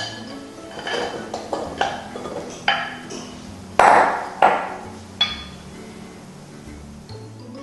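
Wooden spoon knocking and scraping against glass bowls as cubed butter is tipped from a small glass bowl into a larger one, with glass bowls set down on the stone worktop. It is a string of clinks and knocks, the loudest two about four seconds in.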